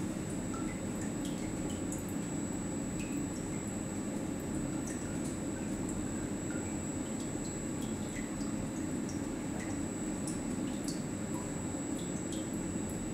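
Watson-Marlow peristaltic chlorine pumps running with a steady low hum during a calibration run. Small liquid drips and blips are scattered over the hum, along with a faint steady high whine.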